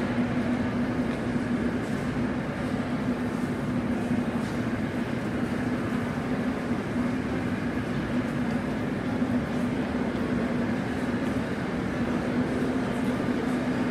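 Steady rumbling din of an underground metro station's passageways, with a constant low hum running under it.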